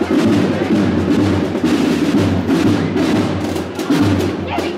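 Procession band playing a march, with rapid rolling snare drums and bass drum under sustained low instrumental notes.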